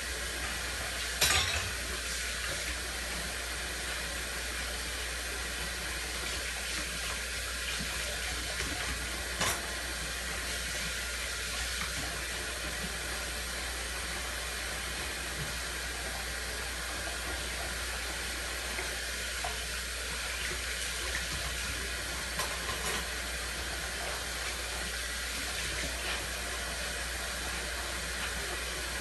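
Kitchen tap running steadily into a sink during hand dishwashing, with a few sharp clinks of dishes: one about a second in, another near the middle and a couple later on.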